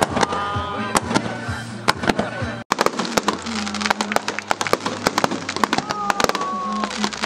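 Fireworks going off in quick succession: many sharp bangs and crackling reports from rising comets and bursting shells, with music playing underneath. The sound cuts out for an instant about a third of the way in.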